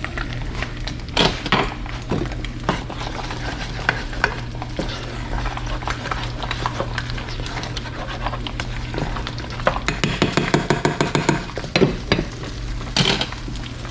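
Food sizzling in hot frying oil while a utensil stirs and clinks against the pot or pan. A quick run of clinks comes about ten seconds in, over a steady low hum.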